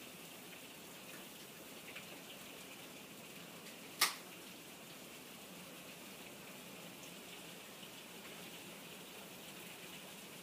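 Heavy thunderstorm rain falling steadily, heard from indoors through a window as an even hiss, with one sharp click about four seconds in.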